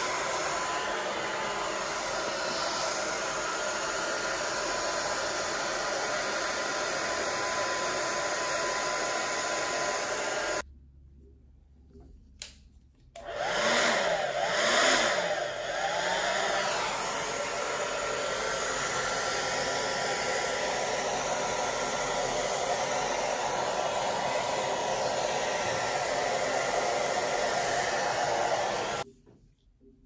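Wavytalk ionic hair dryer, fitted with a concentrator nozzle, blowing steadily as a rush of air with a faint steady whine. It cuts out about a third of the way in for a couple of seconds, comes back loudest with a wavering whoosh, then runs steadily and stops shortly before the end.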